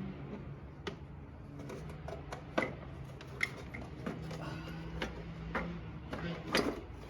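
Scattered light clicks and taps of small parts and tools being handled during a repair, the loudest about two and a half seconds in and near the end, over a faint low hum.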